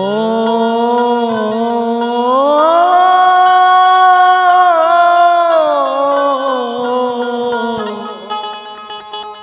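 Haryanvi devotional bhajan music: one long sustained melodic line swells in, glides up about two and a half seconds in, holds, then slides back down and fades near the end.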